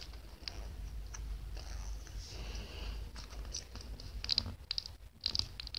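Small plastic Rubik's Cube piece fiddled with by fingers: a soft rubbing sound, then a run of light plastic clicks that come in two quick clusters near the end.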